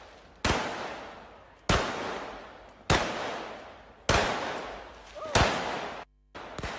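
A firearm being fired repeatedly: six sharp shots at an even pace of about one every 1.2 seconds, each followed by an echo that fades over about a second.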